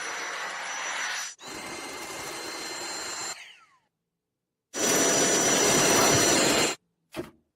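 Cordless stick vacuum cleaner running with a steady high whine over its airflow noise, cut into short spells that start and stop abruptly. After about three seconds it winds down with a falling whine, then silence for about a second, then it runs again, louder, for about two seconds.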